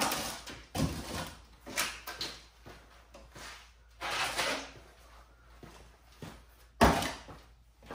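Cardboard packaging being pulled off and handled: a series of separate scraping, rustling noises, with a sharp cardboard thump about seven seconds in as the loudest.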